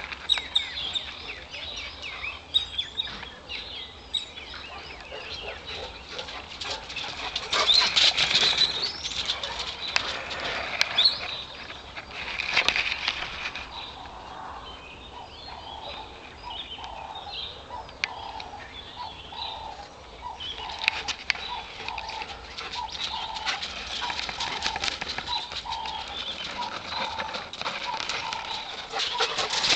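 Small birds chirping and twittering, mixed with the quick footfalls and rush of a dog running laps past on bare earth, loudest in two passes about a third of the way in.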